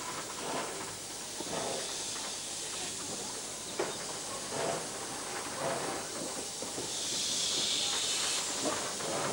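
Steam hissing from the ex-Queensland Railways D17 steam locomotive No. 268, steady, with a louder, sharper burst of hiss about seven seconds in that lasts a second and a half.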